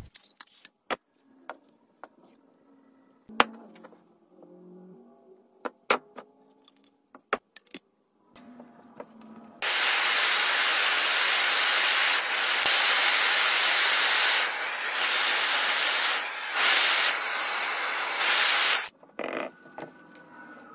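Scattered clicks and handling noise, then a handheld gas soldering torch burning with a loud, steady hiss for about nine seconds as the copper pipe joint is heated for soldering, cutting off suddenly.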